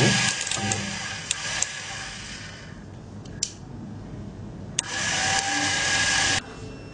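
Small electric motors on a hobby robot whirring. The whir dies away about two and a half seconds in, with a few sharp clicks, then starts again near five seconds and cuts off suddenly about a second and a half later.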